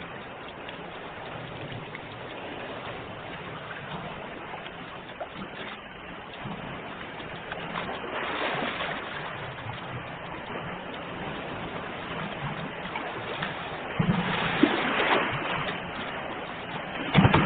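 Sea waves washing onto the shore, a continuous rush that swells with a breaking wave about halfway through and again from near the end.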